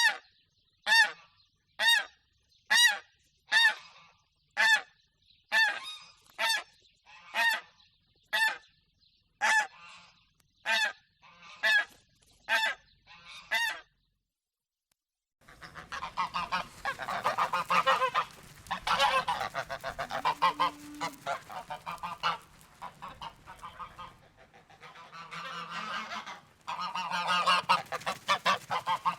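Geese honking: clear single honks repeated about once a second, then after a short silence a whole flock calling together in a dense, overlapping chorus.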